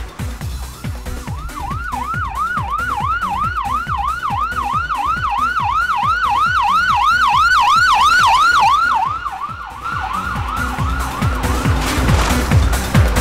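Police car siren in a fast yelp, the pitch swooping up and down about four times a second, growing louder and then fading about ten seconds in. A steady musical beat plays underneath.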